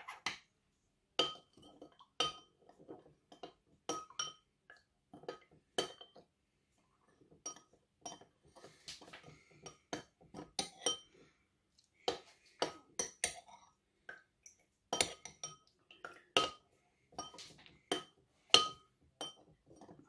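Metal teaspoon stirring white wine in a stemmed wine glass, clinking against the glass again and again in an irregular rhythm, each clink ringing briefly. The clinks pause twice for a moment. Thickener powder is being stirred into the wine.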